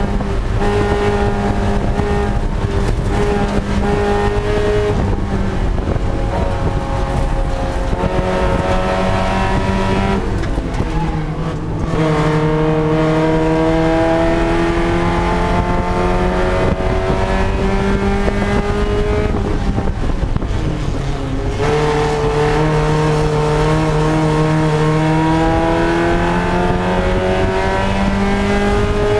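Spec Miata's four-cylinder race engine under hard throttle, heard from inside the stripped cabin, its pitch climbing steadily through the revs. The engine note breaks off twice, about ten and about twenty seconds in, as the throttle is lifted, then climbs again.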